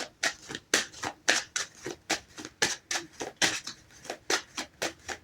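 Tarot cards being shuffled by hand, a run of crisp card slaps at an even pace of about four a second.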